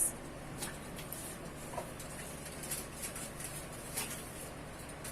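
A few faint, scattered taps and clicks of saba banana pieces being set down on a baking tray, over a low steady hum.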